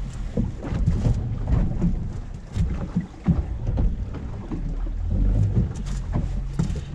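Wind buffeting the microphone and water slapping the hull of a small fishing boat on choppy open water. The rumble is uneven, with scattered knocks and bumps from handling in the boat.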